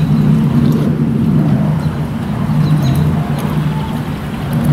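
Truck engine idling steadily, with a few short high bird chirps over it.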